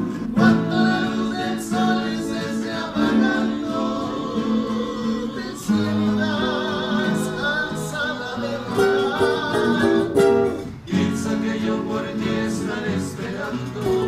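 A bolero trio performing: plucked acoustic guitars, a requinto among them, with sung vocal lines held with vibrato. The music drops briefly about ten seconds in, then picks up again.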